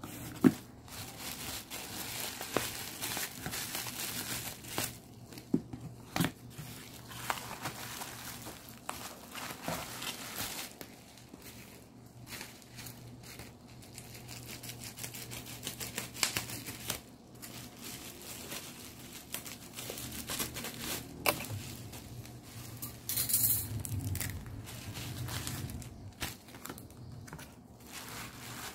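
Bubble wrap crinkling and a kraft cardboard mailer box being folded and handled, with many scattered sharp clicks and taps from the cardboard and plastic.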